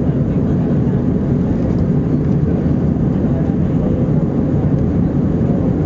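Steady cabin noise inside an Airbus A321-231: an even rumble of the engines and airflow, unchanging throughout.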